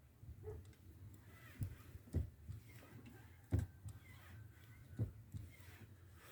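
VW Passat B3 clutch pedal pressed and released several times, giving a few soft knocks and no crunching: the pedal-assembly crunch is cured by WD-40 on its pivots and spring mounts.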